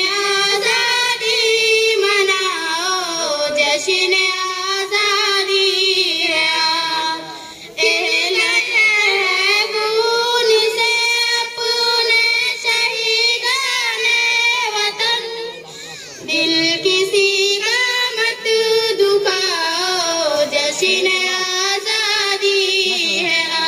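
Two girls singing an Urdu independence-day tarana (patriotic song) together into microphones, in long phrases with held, wavering notes. There are short breaths between phrases, about a third and about two-thirds of the way through.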